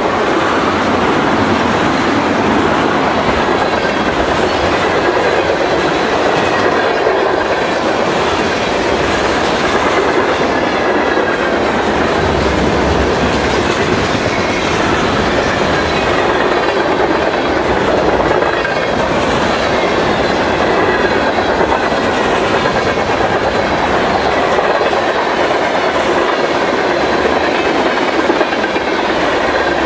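Freight train cars (tank cars, covered hoppers and boxcars) rolling past close by: a loud, steady stream of wheel noise with clickety-clack over the rail joints.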